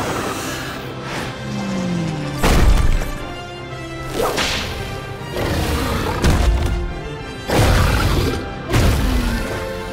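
Cartoon action sound effects: a string of whooshes and swishes about every second or two, some landing with deep thuds, over background music.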